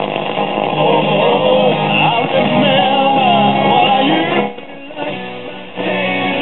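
A song with guitar and singing played over FM radio through the 1965 Magnavox Astro-Sonic console stereo's solid-state chassis. The sound is narrow and thin. The music drops away briefly about four and a half seconds in, then comes back.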